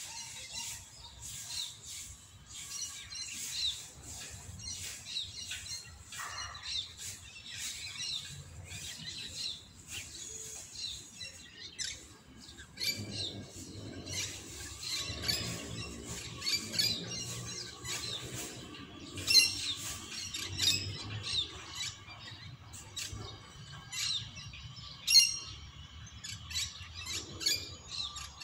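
Small birds chirping and calling, with many quick chirps and short calls overlapping throughout.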